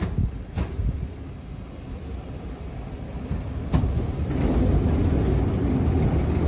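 A first-generation diesel railcar, built in 1958, running into the station. Its diesel engine rumbles low, with two sharp knocks early on, then grows clearly louder from about four seconds in as the railcar pulls alongside.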